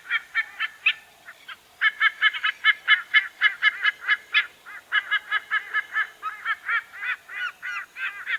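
White-bellied sea eagle calling: a rapid series of short, repeated call notes, about five a second, with a brief pause about a second in before the series resumes.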